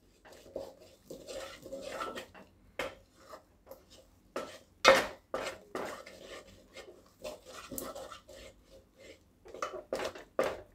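Metal utensil scraping and knocking against an aluminium pot while stirring a thick gram-flour dough, stirred so that no lumps form. The strokes are irregular, with a louder knock about five seconds in.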